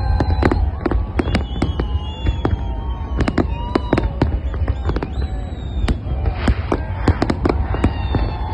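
Fireworks display: rapid bangs and crackles over a steady low rumble, with long wavering tones running underneath.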